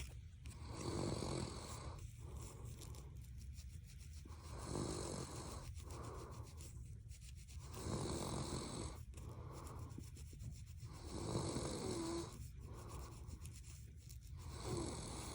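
A person snoring, a snore about every three and a half seconds, five in all, with fingernails scratching a scalp in small scratchy clicks between the snores.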